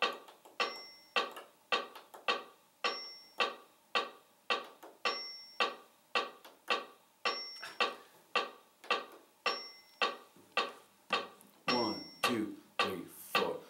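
Metronome ticking steadily at 108 beats per minute, about two ticks a second, with a higher accented beep every fourth beat. A steel-string Takamine acoustic guitar is strummed along with it through a G–Em–Am–D progression, damped by the side of the strumming hand resting lightly on the strings for a dull sound. Near the end the chords ring out more fully.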